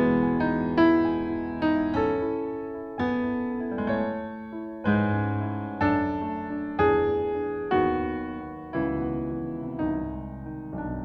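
Slow solo piano music: single notes and chords struck roughly once a second, each ringing and fading before the next.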